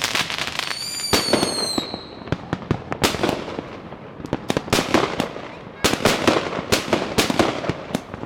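A box of consumer fireworks going off: clusters of sharp pops and bangs. About a second in, a high whistle glides slightly downward for about a second.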